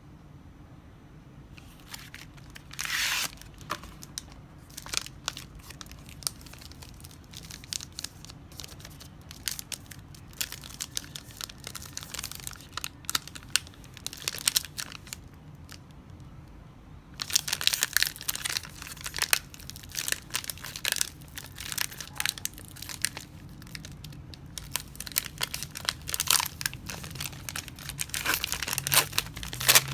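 Chocolate bar wrapper being handled and unwrapped: scattered crinkles with a longer tearing rush about three seconds in, then denser, louder crinkling in the second half.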